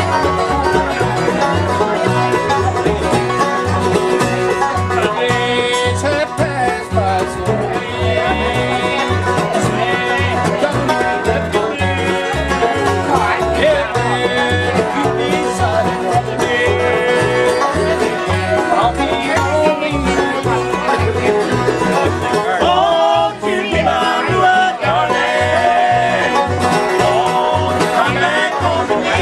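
Acoustic bluegrass jam: banjo, flat-top guitars, fiddle and upright bass playing an instrumental tune together, the bass keeping a steady even beat under the picking.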